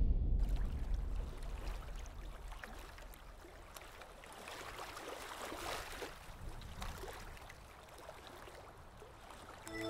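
Underwater ambience: a faint hiss of water noise with scattered small clicks and crackles, swelling slightly around the middle.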